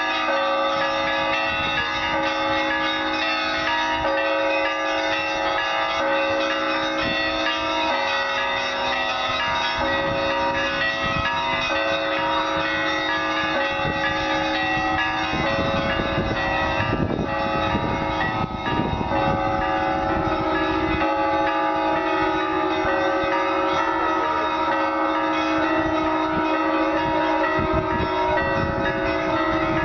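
The bells of a Russian Orthodox cathedral ringing together in a continuous peal, many bells of different pitches struck again and again so that their tones overlap. There is some low rumbling about halfway through.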